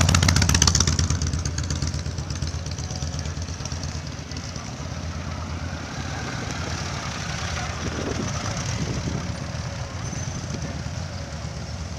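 Motorcycle engines running at idle, with a rapid even firing pulse. The sound is loudest in the first second or so, then settles to a lower, steady running.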